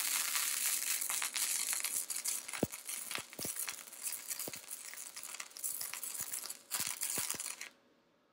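Gasless flux-core MIG arc from a YesWelder YWM-200 crackling and sputtering steadily as it lays a bead on thin-wall galvanized steel tubing, with scattered sharp pops. The arc breaks off briefly about six and a half seconds in, restarts for about a second, then stops.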